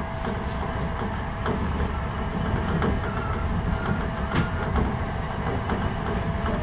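Enshu Railway electric train running along the track, heard from the driver's cab: a steady low rumble with scattered short clicks from the wheels on the rails and a faint steady whine.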